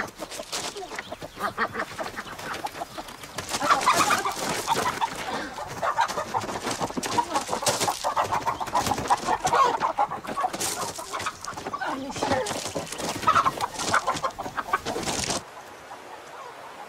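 Hens clucking and squawking in a flurry, with wings flapping, as a hen is seized by hand. The squawking stops abruptly about fifteen seconds in, leaving quieter outdoor background.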